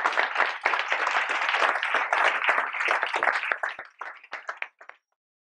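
Audience applauding, the dense clapping thinning to a few scattered claps and stopping about five seconds in.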